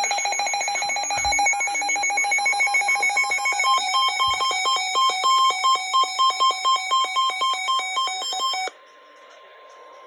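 Weather radio alert tones for a severe thunderstorm warning: rapid electronic beeping layered with a high tone pulsing about twice a second, in the place of the NOAA Weather Radio warning alarm tone. It cuts off abruptly about nine seconds in, leaving a faint steady tone for a moment.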